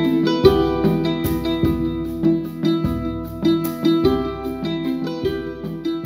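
Background music: a plucked-string instrumental over a steady bass beat, beginning to fade out near the end.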